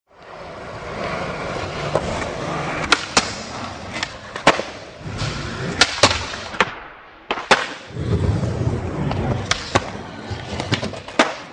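Skateboard wheels rolling on smooth concrete with a steady rumble, broken by sharp clacks of the board popping off and landing tricks on a ledge, about nine in all, with a short lull around the middle.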